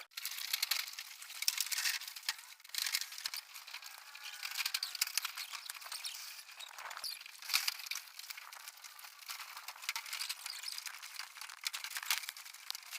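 Rams drinking water, heard as an irregular run of small clicks and crackles.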